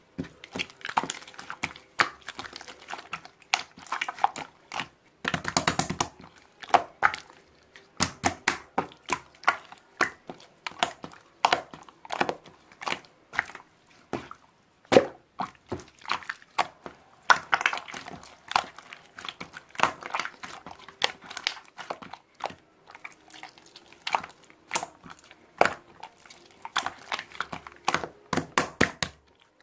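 Irregular clicks, taps and crinkling of things being handled, with no speech.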